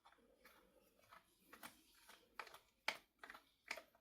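A series of faint, irregular clicks and light handling noise from a small screwdriver backing a screw out of a Dyson V7 handheld vacuum's battery mount.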